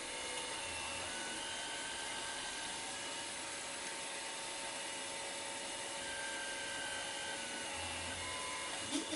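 3D printer running: a steady hiss with a faint stepper-motor whine at a few steady pitches that shift now and then, and a small click near the end.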